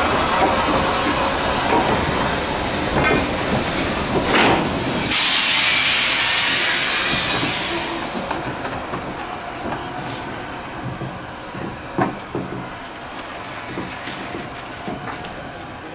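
Somerset & Dorset 7F 2-8-0 steam locomotive hissing steam; about five seconds in a loud hiss of escaping steam lasts some two and a half seconds, then settles to a softer hiss. A single sharp knock comes about twelve seconds in.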